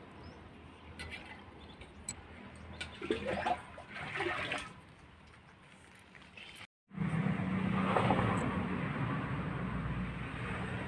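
Faint outdoor ambience with a few soft clicks and faint distant voices. After a brief dropout about two-thirds in, a steady rushing noise with a low hum.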